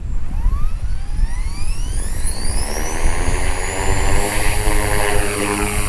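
HK-450GT electric RC helicopter spooling up. The brushless motor and gear whine climb in pitch over the first three seconds or so, then hold steady as the rotor reaches flying speed, over a low rumble.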